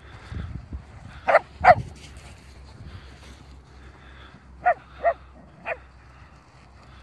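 Dogs barking while they play-chase: two loud barks about a second in, then three shorter barks near the end.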